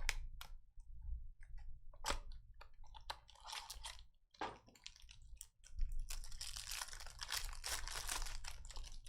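Trading-card packaging being opened and handled: crinkling and tearing of plastic wrap and cardboard in scattered crackles and clicks, then a denser run of crinkling for the last three seconds or so.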